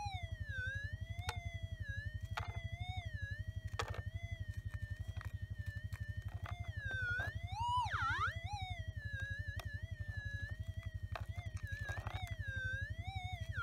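Minelab gold detector's audio tone warbling up and down as a hot rock is held over its coil, with a sharp dip and upward swoop about eight seconds in, over a low rapid buzz. This is the detector answering to the gold in the rock. A few light clicks of tongs against the rock and plate.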